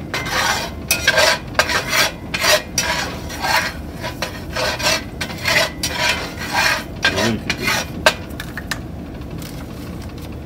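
Metal fork scraping and stirring a flour-and-oil roux across the bottom of a cast iron skillet as it browns, in quick repeated strokes. The scraping stops near the end.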